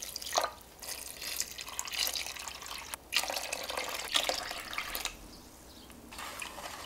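Water poured from a clear measuring cup into a stainless stockpot of soy-sauce stock, splashing into the liquid. It comes as repeated cupfuls with short breaks between them, quieter after about five seconds.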